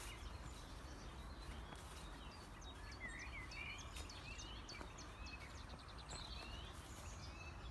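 Songbirds singing faintly, a string of short chirps and warbled phrases with a quick trill in the middle, over a steady low background rumble of open countryside.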